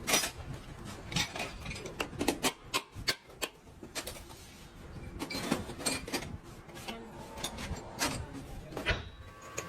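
Scattered clicks, knocks and clatter of hand work with tools and metal parts, at irregular intervals.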